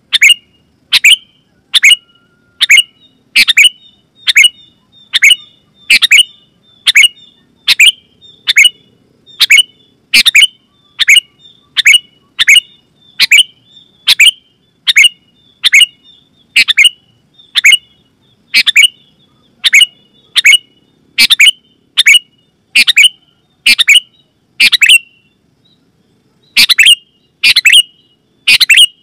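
Sooty-headed bulbul (kutilang) calling loudly: short, sharp calls repeated a little more than once a second, with softer chatter between them. The calls pause briefly near the end.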